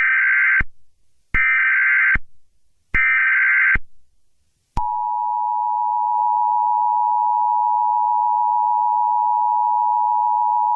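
Emergency Alert System tones. First come three short bursts of the SAME digital header, a harsh warbling screech each under a second long, about a second and a half apart. Then, about five seconds in, the steady two-tone EAS attention signal starts and holds: the tones that open an emergency alert broadcast.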